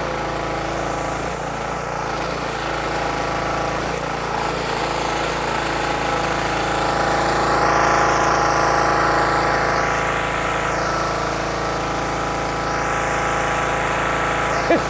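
Gasoline pressure washer's small engine running steadily as it warms up, with the hiss of the wand spraying water into the air.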